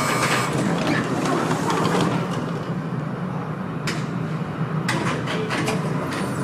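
Tatra T4D tram standing with a steady low hum, its folding passenger doors closing with a few sharp clunks about four and five seconds in.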